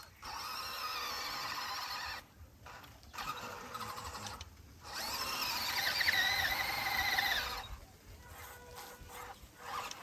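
RC crawler's small electric motor and gearbox whining in three throttle bursts, the last and loudest from about five to seven and a half seconds in, the pitch wavering as the load changes.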